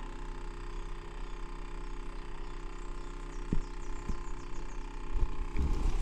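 Quiet early-morning riverside ambience with a steady low hum and a faint run of high, falling bird chirps in the middle. A couple of small clicks follow, then handling bumps and thumps near the end as the phone is moved.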